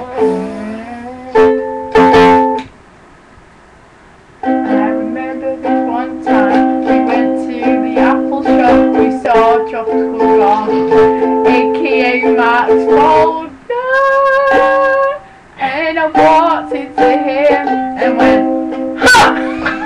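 Ukulele strummed in chords, breaking off briefly about three seconds in and then strumming on steadily.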